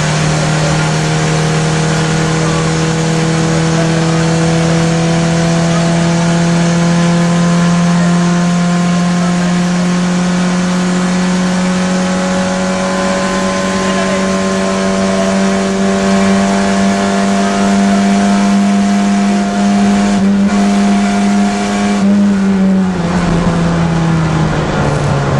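Rally car engine heard from inside the cabin, held at high revs in one gear with the pitch climbing slowly as the car gathers speed. Near the end the revs fall away in steps.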